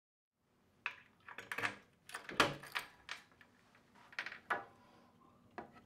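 Hinged wooden cover panel being swung open: a string of irregular knocks and clicks from the wood and its metal hardware.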